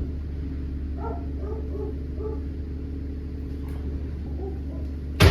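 Steady low drone of heavy diesel engines from the concrete pump and mixer trucks running outside. A few faint short whines come in the first half, and a sharp knock sounds at the very end.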